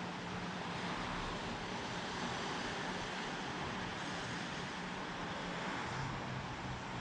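Steady rain falling, an even continuous hiss with no distinct drops or events.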